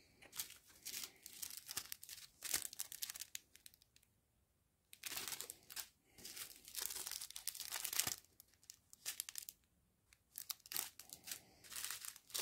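Plastic crinkling and rustling as strips of small sealed bags of round diamond-painting drills are handled, in irregular short bursts with two brief pauses.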